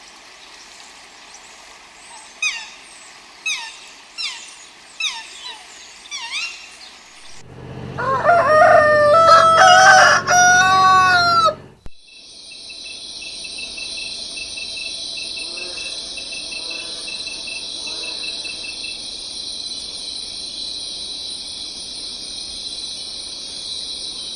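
A rooster crowing once, loud and drawn out over about four seconds. Before it come a series of short, sharp falling bird calls, and after it a steady high-pitched insect chorus with faint calls over it.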